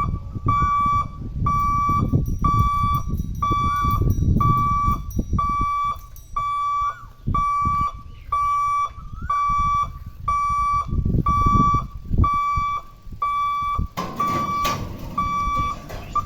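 Railway level-crossing warning buzzer beeping about once a second with a steady high tone, over a low rumble. About fourteen seconds in, a louder rushing noise joins it.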